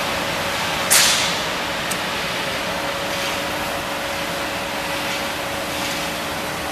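Automatic stator varnishing machine running with a steady hiss and a faint steady hum. About a second in there is one sudden sharp noise that fades quickly.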